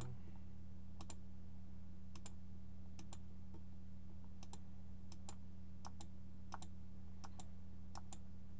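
Computer mouse clicking, irregularly, a single click or a quick pair about once a second, over a steady low electrical hum.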